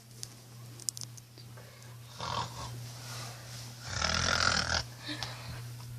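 A person snoring heavily in rough, pig-like snorts, with a short snore about two seconds in and a longer, louder one about four seconds in. A steady low hum runs underneath.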